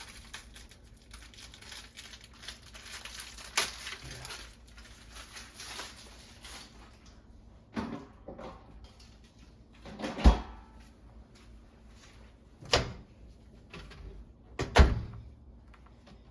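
Light rustling for the first six seconds or so, then five sharp knocks and thuds spaced about two seconds apart, the kind made by handling things and opening and shutting a door or cupboard.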